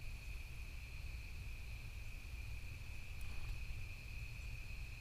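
Crickets chirping as one continuous high trill, over a low rumble.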